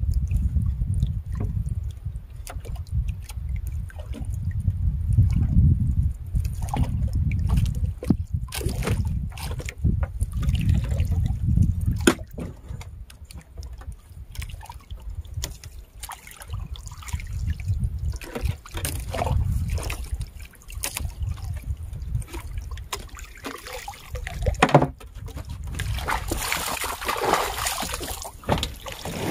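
Water trickling and splashing against a small fishing boat, with a low rumble of wind on the microphone and scattered knocks; the splashing grows louder near the end.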